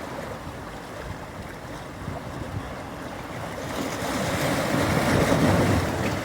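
Sea waves washing onto a beach: steady surf that swells to a louder breaking wave about four seconds in and eases off near the end, with some wind on the microphone.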